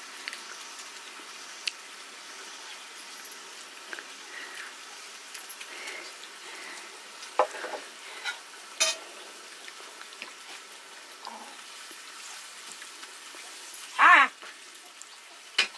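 A steady hiss with a few sharp clicks scattered through it, and a short loud vocal sound a little before the end.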